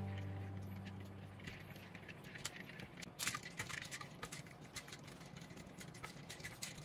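Background music fades out over the first second, then scattered light clicks and clinks of kitchen handling, with a sharper one about three seconds in.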